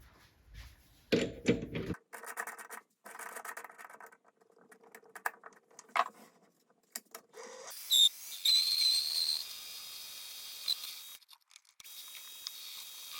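Handling clicks, then a small power tool running with a steady high-pitched whine while a pulley's bore is drilled out larger, its sound broken off briefly a few seconds before the end.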